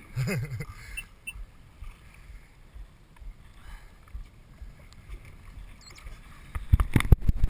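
Sea-Doo jet ski idling low on choppy water with a quiet rumble, then a quick cluster of sharp thumps near the end.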